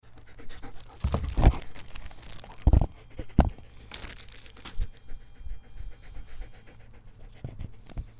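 Dog panting close by, with a few dull thumps and rustles of contact near the microphone, loudest in the first few seconds.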